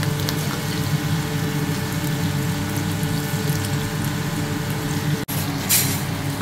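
Battered chicken breast pieces frying in sunflower oil in a pan: a steady sizzle over a low hum. After a sudden break about five seconds in, a wooden spoon scrapes and stirs through the chicken in the pan.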